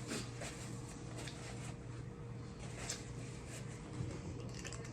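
Eating sounds from a seafood boil: scattered soft clicks, crackles and mouth sounds of chewing and handling the food, over a steady low hum.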